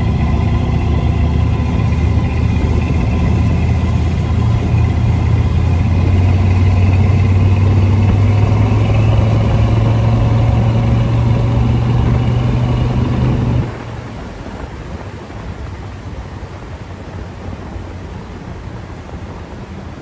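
Ford 351 Windsor V8 in a bullnose F-150 running steadily while driving, its pitch rising a little about four seconds in. About two-thirds of the way through the sound drops suddenly to a much quieter, steady rumble.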